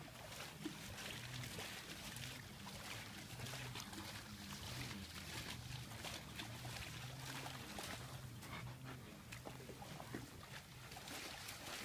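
A white high-content wolfdog breathing and panting close by, faintly, with short scuffs and clicks throughout. A faint low hum comes and goes underneath.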